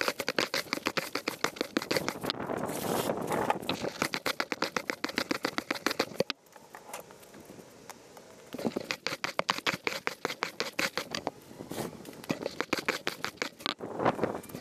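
Stiff-bristled push broom sweeping dry leaves across concrete paving slabs: rapid scratchy bristle strokes with crisp leaves crackling. About halfway through there is a quieter pause of about two seconds.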